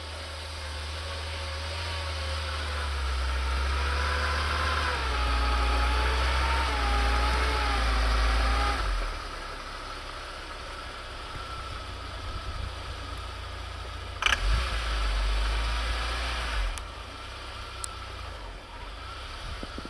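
Lifted UAZ Patriot SUV on aired-down off-road tyres climbing through deep snow toward the microphone. The engine works under load and grows louder, with a whine that wavers in pitch, then eases to idle about nine seconds in as the vehicle stops. Around fourteen seconds there is a sharp knock and a short rise in engine sound, then idle again.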